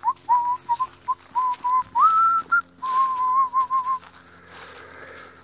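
A person whistling to call dogs: a string of short whistled notes, a higher held note about two seconds in, then a warbling run of notes that stops about four seconds in.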